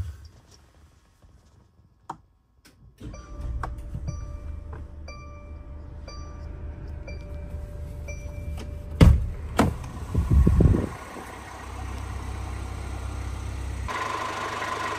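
Mercedes-Benz Sprinter van's engine starting about three seconds in and running at idle, heard from the cab, with dashboard chimes beeping repeatedly over it. Two loud thunks come about two-thirds of the way through, and near the end the idling engine is heard from outside the van.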